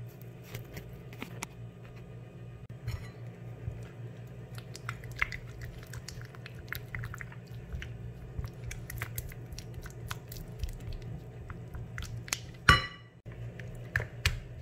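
Silicone spatula stirring thick fresh cream and condensed milk in a glass bowl: irregular wet squelching and light scraping against the glass, over a steady low hum. There is one sharp knock near the end.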